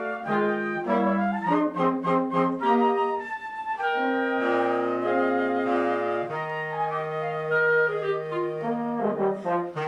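Marine Corps concert band of brass and woodwinds playing a Christmas arrangement. Quick runs of notes give way to long held chords, and a burst of quick notes comes near the end.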